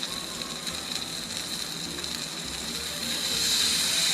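Thick Wagyu New York strip steak searing in butter and olive oil on a hot Blackstone flat-top griddle: a steady sizzle with fine crackling, growing louder about three seconds in.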